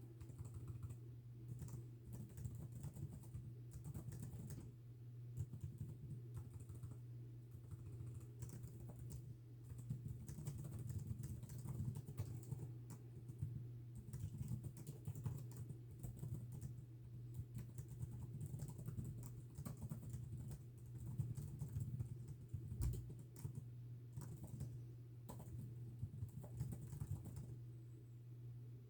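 Continuous fast typing on a keyboard, irregular bursts of key clicks with brief pauses, over a steady low hum.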